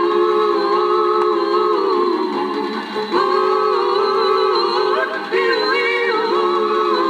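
Female voice singing a wordless cattle-call yodel: long held notes broken by sudden leaps in pitch, over an orchestral accompaniment.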